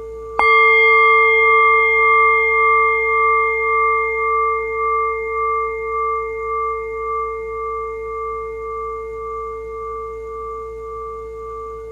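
A meditation bell struck once about half a second in, over the fading ring of the previous strike. Its deep hum and several higher overtones ring on and slowly die away with a pulsing, wavering beat.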